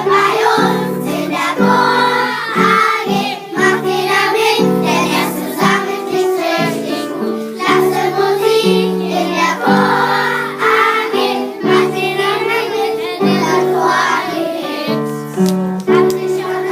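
Primary-school children singing a song together as a choir, over held accompanying notes from an instrument.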